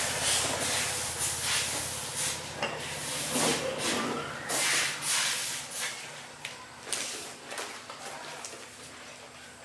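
Repeated loud hissing bursts, long at first and then shorter, over a steady low mechanical hum that weakens after about six seconds.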